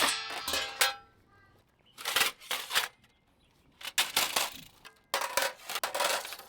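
Stainless steel fire pit panels being handled and knocked together: a ringing metal clank at the start, then several sharp clatters and a longer scraping rattle near the end.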